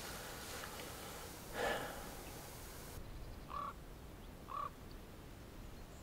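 Crow-family birds calling: a harsh call about a second and a half in, then two short caws about a second apart. They sound over a steady hiss that stops abruptly about halfway through.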